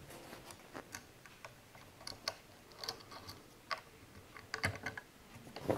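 Faint, irregular clicks and taps of small parts being handled in a 3018 CNC router's plastic Z-axis carriage as the spring and nut are fitted onto the lead screw, with a slightly louder clack near the end.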